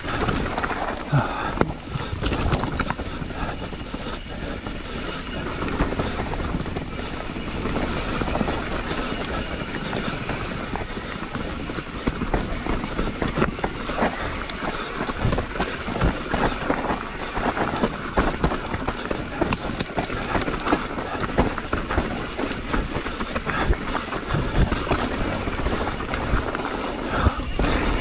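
Mountain bike ridden fast down a rocky, leaf-strewn dirt trail, heard from a camera on the rider: a steady rush of tyre noise broken by frequent knocks and rattles as the wheels hit rocks and roots.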